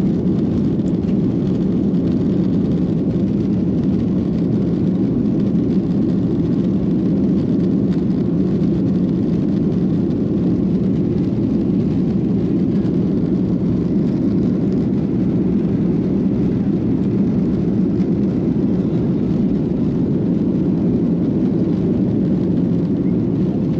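Steady engine and airflow rumble inside the cabin of a Boeing 737-800 during takeoff, its CFM56 turbofans at high thrust.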